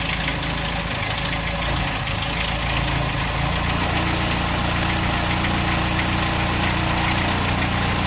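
Toyota 2E four-cylinder engine idling just after a cold start, with the automatic choke on its Aisan carburetor working. The idle speed rises slightly about three and a half seconds in.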